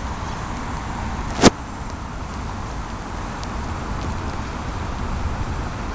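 Steady low rumble of distant city road traffic, with a single sharp knock about a second and a half in.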